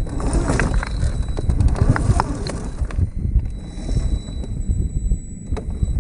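Radio-controlled scale crawler driving over rough ground: a string of sharp clicks and crunches from its tyres on gravel and dirt, over a low rumble, with the clicks thinning out about halfway through.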